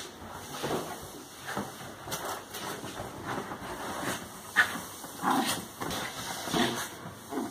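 Small dog scrambling and tumbling on sofa cushions in excited play: irregular thumps and rustles, with a sharp knock a little past halfway as the loudest moment. A few short dog vocal sounds come near the end.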